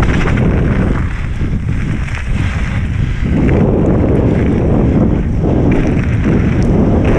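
Loud wind buffeting the microphone, mixed with the rumble and rattle of a mountain bike's tyres on a gravel trail at speed. It eases a little between about one and three seconds in, then fills out again.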